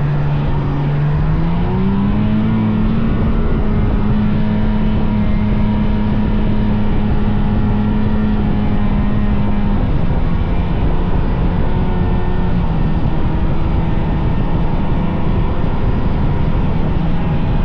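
Vintage snowmobile engine running along a trail. It speeds up over the first couple of seconds, holds a steady pitch, then eases off a little about ten seconds in.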